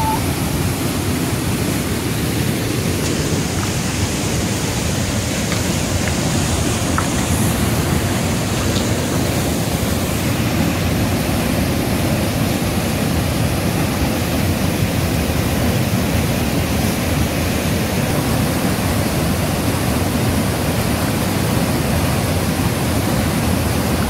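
Waterfall pouring into a rock plunge pool: a steady, loud rush of falling water.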